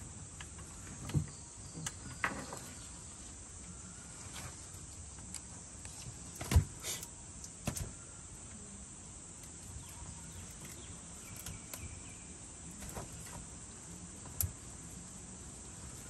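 Scattered knocks and taps on a wooden dugout canoe as a fishing net is hauled over the side and a fish is picked out of the mesh. The loudest is a sharp knock about six and a half seconds in, over a steady high hiss.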